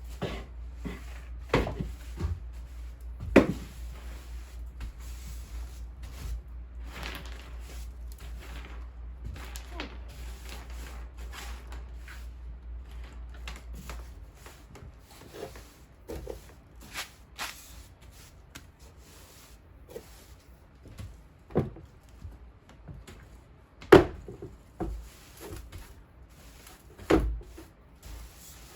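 Scattered knocks, clicks and bumps of household objects being handled and set down, with a few sharper knocks standing out. A low hum runs underneath and stops about halfway through.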